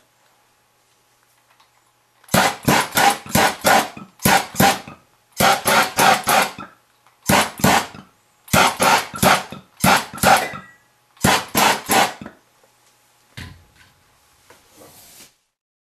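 Guitar music: strummed chords in quick groups of two to five strokes with short pauses between, ending about two-thirds of the way through, followed by a few faint clicks.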